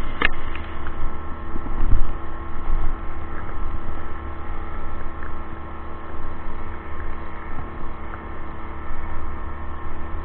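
Steady, even-pitched hum of the ebike's onboard small gas generator running at constant speed while riding, with wind rumbling on the microphone. A sharp click comes just after the start and a thump about two seconds in.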